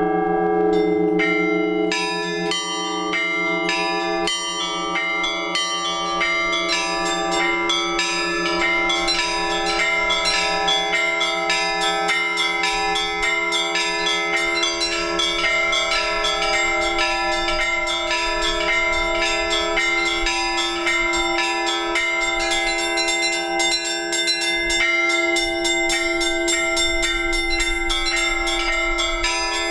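Orthodox church bells ringing a full peal to call the faithful to the all-night vigil. Many bells are struck in a fast, dense pattern over the long, steady hum of the larger bells, with no pause.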